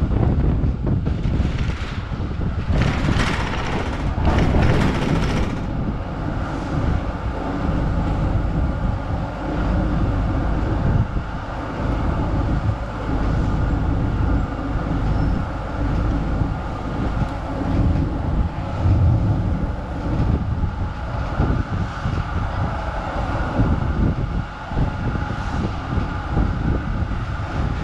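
Z class tram running along a street, its wheels and body rumbling and rattling on the rails, heard through an open tram window. A louder rush of hiss swells from about two and a half to five and a half seconds in.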